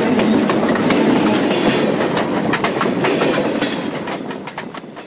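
Freight train cars rolling directly over the rails above a low camera: a loud, rapid clatter of wheels on rail joints over a steady rumble, fading away near the end.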